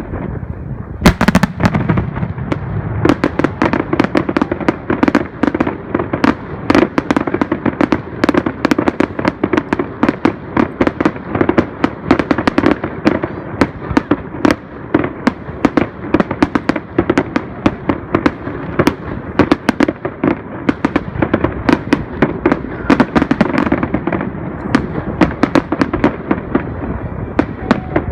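Aerial fireworks going off in a dense, continuous barrage of bangs and crackles, many reports a second, with the loudest bangs about a second in.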